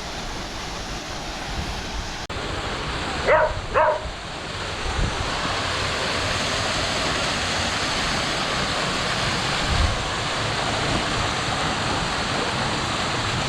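Waterfall rushing in a steady roar of falling water that grows louder about five seconds in. Two short, sharp barking calls stand out about three seconds in.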